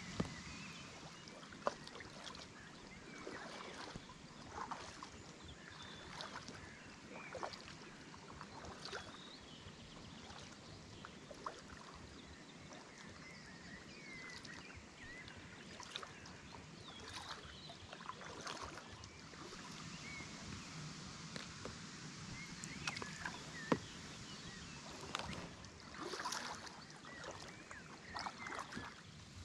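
Packraft paddle strokes in calm lake water: soft dips, drips and small splashes, with scattered light knocks.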